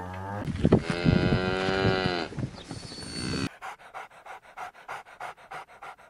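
A cow mooing in one long, pitched call that rises and falls. About halfway through, it gives way to a Jack Russell terrier panting rapidly, about four or five breaths a second.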